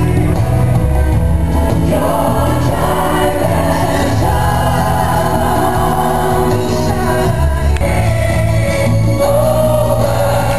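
Show music with choir-like singing, played loud through an arena's sound system.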